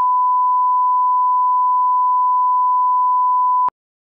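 Steady 1 kHz test tone, the reference tone that goes with a colour-bars test signal, cutting off suddenly near the end.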